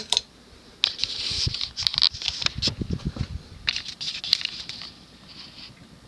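Ceiling fan pull-chain speed switch being worked: the metal chain rattles and clicks in two bouts, about a second in and again about four seconds in, as the fan is switched from low to medium.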